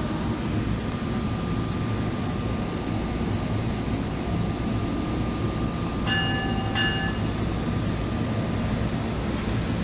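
NJ Transit ALP-46A electric locomotive standing at the platform, its machinery running with a steady low hum and a faint constant high whine. About six seconds in, a short two-stroke electronic chime sounds.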